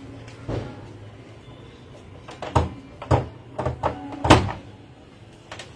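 A series of sharp knocks and clicks, about six, the loudest about four seconds in, as sculpting tools and clay are handled on a plywood board, over a steady low hum.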